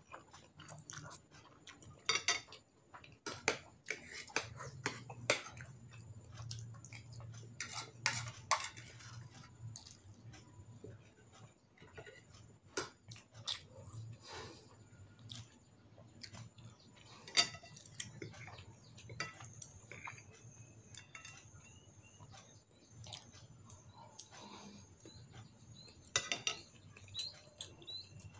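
Eating sounds: chopsticks clicking against a glass bowl of instant noodles, with noodle slurping and chewing between the clicks.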